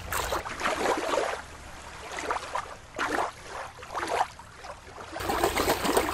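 Water splashing and sloshing in uneven surges, about one a second.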